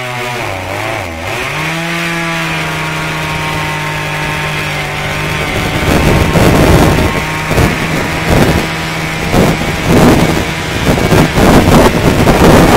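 Chainsaw running at high revs while cutting into a standing tree, its pitch sagging and recovering about a second in. From about six seconds, loud, uneven rushing noise rises over it while the saw keeps running underneath.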